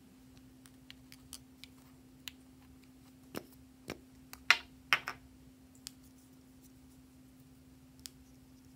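Small plastic clicks and taps from glue stick tubes being handled, with two louder rasping sounds about halfway through, over a steady low hum.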